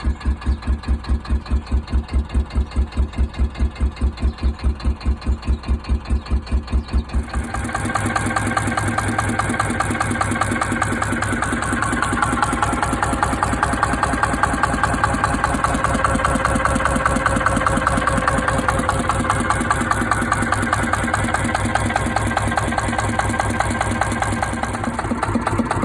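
Petter PAZ1 single-cylinder diesel engine running, with a strong, even beat of about five pulses a second. About seven seconds in, the sound turns suddenly denser and brighter, and it then runs steadily.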